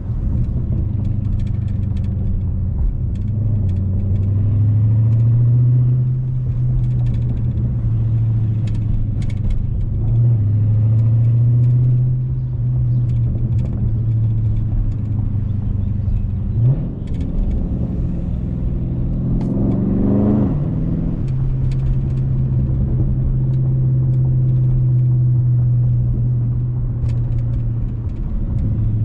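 Exhaust of a tuned, mid-muffler-deleted 2020 Dodge Charger Scat Pack's 6.4-litre Hemi V8, droning steadily while cruising. About 17 to 21 seconds in, the engine revs up, rising in pitch, then settles back to the steady drone.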